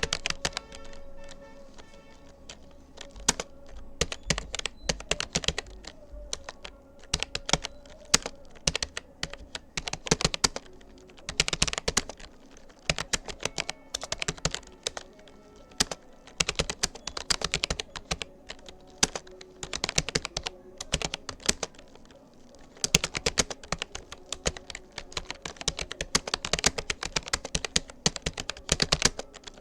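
Typing on a Rapoo computer keyboard: quick, uneven runs of key clicks broken by short pauses.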